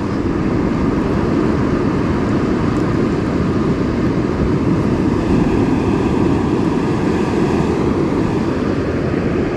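Steady rushing noise of surf and wind on an open beach.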